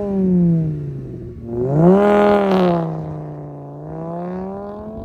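2008 Volkswagen Rabbit's 2.5-litre inline five-cylinder engine (07K), breathing through a USP downpipe and MagnaFlow cat-back exhaust, revved on a cold start. The revs fall away, climb again in a second throttle blip about one and a half seconds in, then drop back to a steady fast idle.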